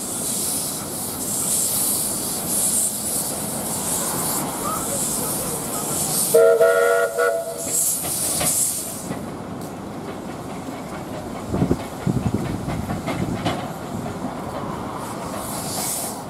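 Bundaberg Fowler 0-6-2T narrow-gauge steam locomotive rolling slowly in, with steam hissing from its cylinders. About six seconds in it gives one short blast on its steam whistle, lasting about a second. After that the hiss fades and the engine passes with a low rumble and a run of clanks from the wheels and running gear.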